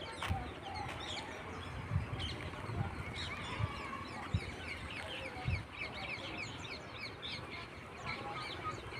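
Many birds chirping together in a dense chorus of short, quick calls, with a few low thumps.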